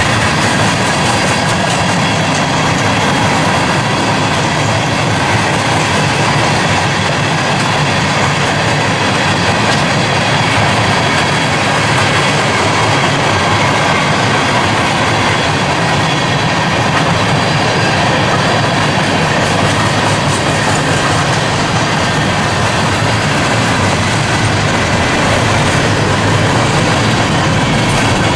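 Freight train of tank cars and boxcars rolling past: steady, loud noise of steel wheels running on the rails, without a break.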